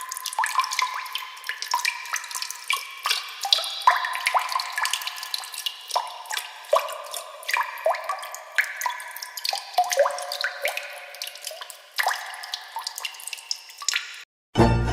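Water-dripping sound effect: many quick drops in an irregular patter, each a short plink that rises in pitch. It cuts off shortly before the end.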